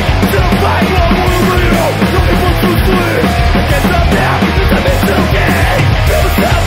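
Melodic hardcore punk song playing loud: a studio recording of a full rock band.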